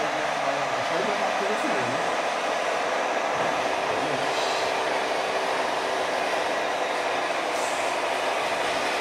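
Hydraulic pump of a radio-controlled model Liebherr 944 excavator running steadily as the boom lowers and the bucket digs into sand.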